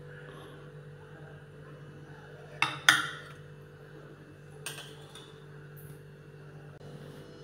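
Steel dishes clinking: two sharp clinks close together about two and a half seconds in, the loudest, and a lighter one near five seconds, over a steady low hum.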